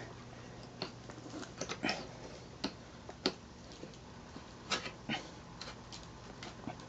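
Scattered light clicks and taps of metal bicycle parts being handled while a tight bolt and shock mount are lined up during assembly.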